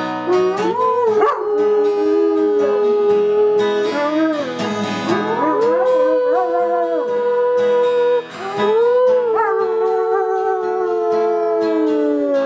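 German Shepherd howling along to a strummed acoustic guitar: several long drawn-out howls that rise, waver and hold their pitch, the last one sliding slowly downward.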